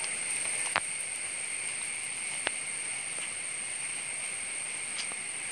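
Woodland ambience: a steady high-pitched hum over an even hiss, with three sharp snaps of dry leaf litter and twigs underfoot, a little under a second in, in the middle and near the end.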